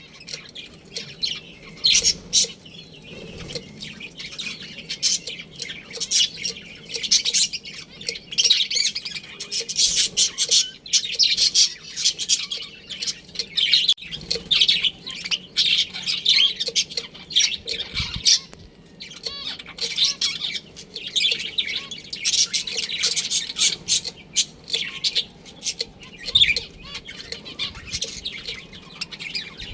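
A colony of budgerigars chirping continuously, with many short, high calls overlapping in dense clusters.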